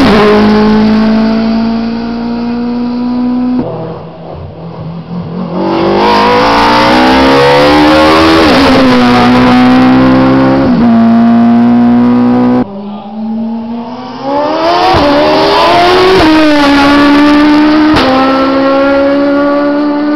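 Hillclimb race cars driven hard past the roadside, one after another: engine notes climb in pitch and drop back at each upshift. The passes are joined by sudden cuts, about a third of the way in and again around two thirds.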